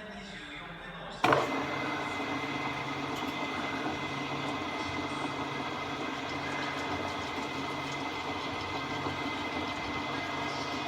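Okuma Howa STM 2V vertical milling machine starting abruptly about a second in, then running steadily with a mechanical hum and a thin steady whine.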